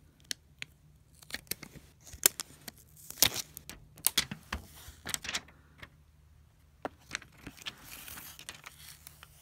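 Hands handling a new iPhone 7 and its cardboard box with plastic inserts: irregular clicks, taps and light rustles of phone, cardboard and packaging, with a short stretch of rustling about eight seconds in.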